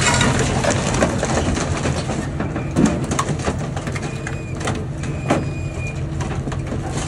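Caterpillar excavator's diesel engine running steadily while its bucket presses a pickup truck down onto a minivan's crushed roof, with scattered cracks, knocks and brief high squeals from the loaded car bodies.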